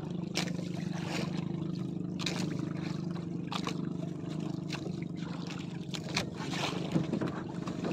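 Water slapping and sloshing against the hull of a small outrigger fishing boat, in short irregular splashes, over a steady low engine hum that fades about halfway through.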